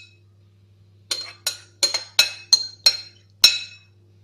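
A spoon clinking against glass dessert cups as sugared strawberries are spooned into them: about seven sharp, ringing clinks in quick succession, starting about a second in.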